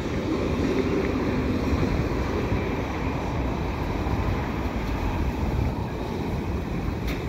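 Steady rumble of a slow freight train's cars rolling past, mixed with wind buffeting the microphone.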